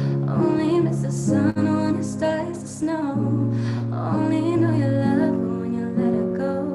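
A slow song: a woman singing over a guitar accompaniment, the chords changing every second or so.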